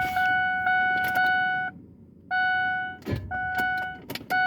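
2003 Ford Explorer's electronic dash chime sounding steadily, broken by a few sharp, hard clicks as the key is turned to start. The engine does not turn over.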